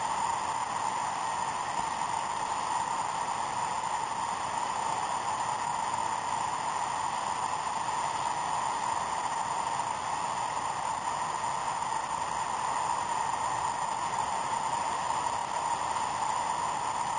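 Steady, even noise of traffic on the freeway deck overhead, with no distinct events.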